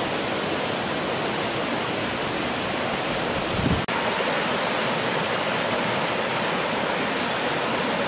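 Steady rush of a rocky jungle river, water running over and between boulders in small rapids. A brief low bump and a momentary break come a little before halfway.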